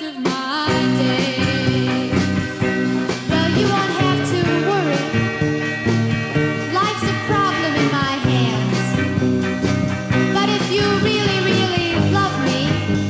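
Rock music playing continuously.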